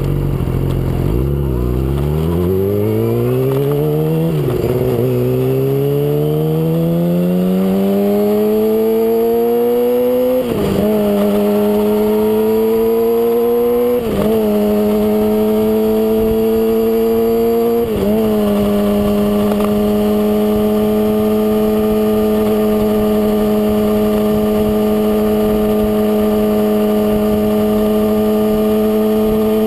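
Inline-four sport motorcycle engine accelerating away from a standstill as heard from the bike itself. The revs climb through the gears with five quick upshifts, then hold steady at cruising speed, with wind noise over the microphone.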